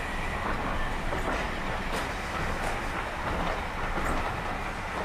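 Train running along the track: a steady rumble with a few faint clicks of the wheels passing over rail joints.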